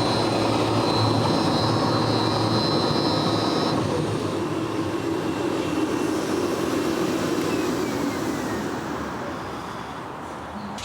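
A 415 V electric four-headed diamond concrete floor grinder runs together with its dust-extraction vacuum as a loud steady machine noise. A high whine stops about four seconds in. Toward the end a falling tone is heard and the noise gradually eases off.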